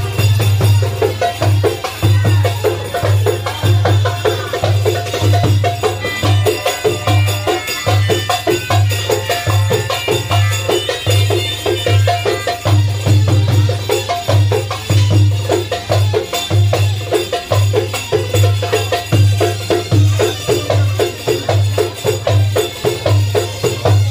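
Live Egyptian hand-drum ensemble, several darbuka drums playing a driving belly-dance rhythm: deep, evenly repeating bass strokes under a dense run of sharp, quick strikes.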